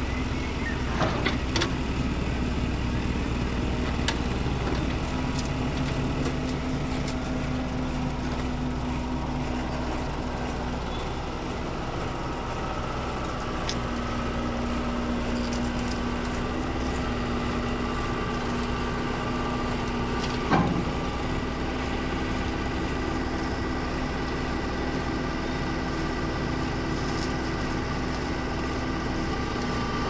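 Doosan mini excavator's diesel engine running steadily under hydraulic load as the machine levers itself up onto a truck bed with its boom and tracks. There are a few light clicks about a second in and one sharp metallic clank about two-thirds of the way through.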